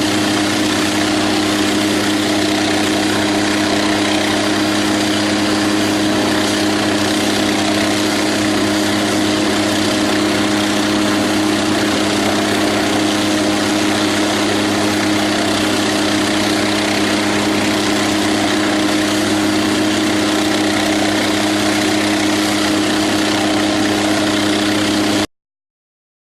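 MQ-8B Fire Scout unmanned helicopter's turbine engine and rotor running steadily, with a constant hum of several tones over a broad rushing noise, until the sound cuts off abruptly near the end.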